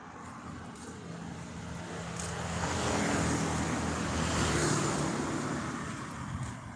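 A motor vehicle passing by: engine hum and road noise swell up, are loudest about three to five seconds in, and fade away near the end.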